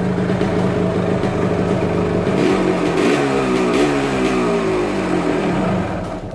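Yamaha RX-Z two-stroke motorcycle engine idling, then revved in several quick blips from about two and a half seconds in, its pitch rising and falling with each one, and fading out near the end.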